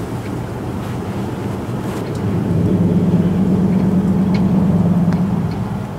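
Pickup truck engine running at steady revs, a low hum that grows louder about two and a half seconds in and eases back near the end.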